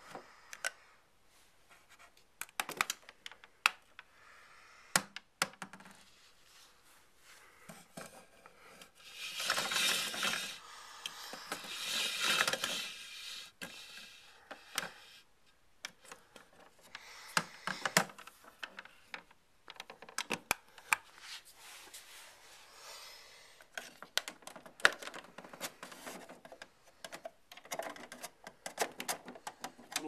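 Toy Hotpoint washing machines handled close up: scattered clicks, taps and knocks of their plastic parts, with two longer bouts of scraping and rubbing about ten and twelve seconds in.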